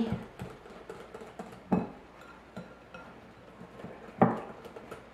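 A whisk stirring thick beer batter in a glass mixing bowl, clinking and knocking against the glass at irregular intervals, with two louder knocks about a second and a half and four seconds in.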